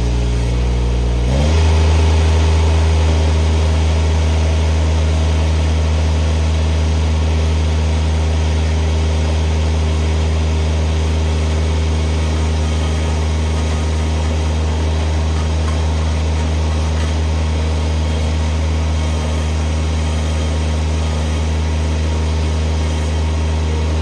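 Mini skid steer's engine running under load, stepping up in pitch about a second and a half in and then holding steady, as it drives a hydraulic auger boring a post hole into stony ground.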